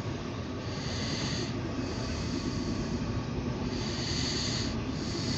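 CSX intermodal freight train of double-stack container cars rolling past, heard from inside a car: a steady rumble of wheels on rail with a hiss that swells and eases several times.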